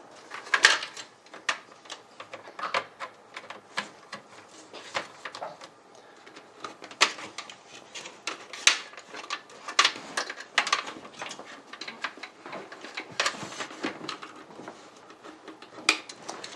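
Cables and plastic connectors being handled and pushed into place inside a computer case: irregular light clicks and taps, one or two a second.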